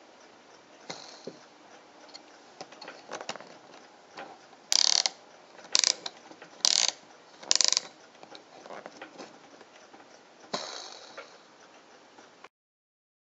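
Clicker of a homemade hard-drive centrepin fishing reel: a pawl ratcheting over a toothed gear as it is turned by hand. Light ticks at first, then four short loud bursts of rapid clicking about a second apart, and one more burst near the end.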